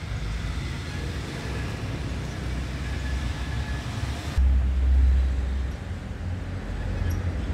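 Low rumble of road traffic. About four and a half seconds in, the hiss drops away and a louder low rumble swells for about a second.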